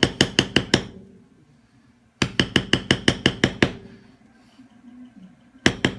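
Mallet striking a metal leather-stamping tool in quick, even taps, about six a second, tooling a leather belt. Each tap rings briefly; there are three runs: one stopping just under a second in, a longer one from about two seconds in, and another starting near the end.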